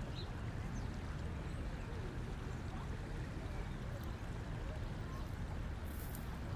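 Steady outdoor background noise with a low rumble and faint, indistinct distant voices.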